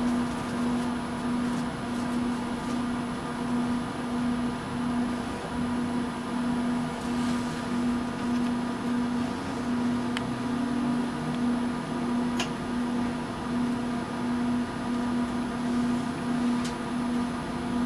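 Steady electrical-mechanical hum of a stationary tram's onboard equipment, heard from the driver's cab, with a low tone that pulses evenly about once a second. A few faint clicks come through near the middle and toward the end.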